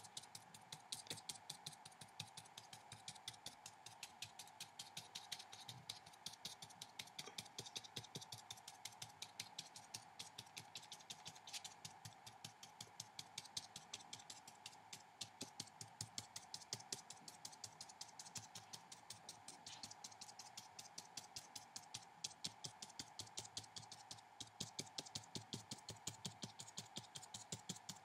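A paintbrush dabbing dots of watercolour onto paper, making faint quick taps at about four or five a second, over a faint steady hum.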